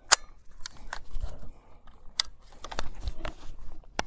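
Irregular clicks, knocks and rustling as a GSG-15 .22 rifle is lifted from the bench and brought up to the shoulder, with clothing brushing against a clip-on microphone.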